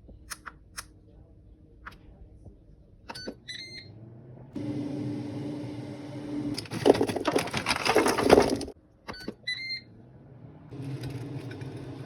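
Kitchen appliance sounds: short electronic button beeps twice, each followed by a steady motor or fan hum. Between them comes a louder, rough, crackly noise for about two seconds.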